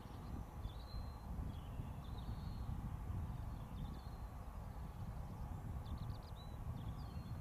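Wind rumbling unevenly on the microphone, with faint short bird chirps and trills heard now and then.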